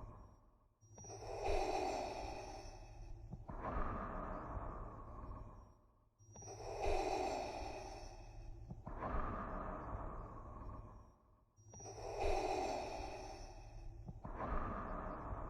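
Darth Vader's respirator breathing sound effect: slow breaths in and out through the mask, one full breath about every five seconds, three in all. A steady low hum runs underneath.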